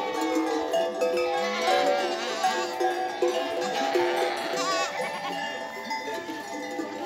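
Many goat bells clanking and ringing together, with overlapping tones from a herd as it grazes. Goats bleat about two seconds in and again around four and a half seconds.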